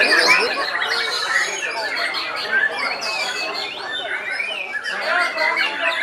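Many caged competition songbirds singing at once: a dense, overlapping chorus of chirps, whistles and trills from several birds together.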